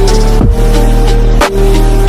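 Background electronic music with a deep sustained bass, held tones and a drum hit about once a second.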